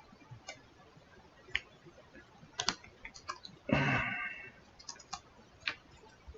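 Small plastic baggie being handled and pulled open: faint scattered crinkles and clicks, with one longer rustle about four seconds in.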